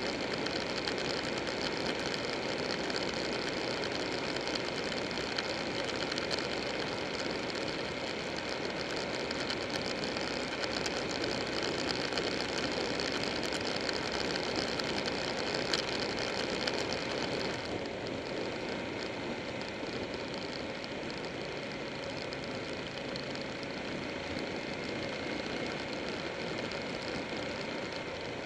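Buell 1125R motorcycle's liquid-cooled V-twin engine running at road speed, mixed with a steady rush of wind and road noise. About two-thirds of the way through the high hiss drops away and the sound eases a little.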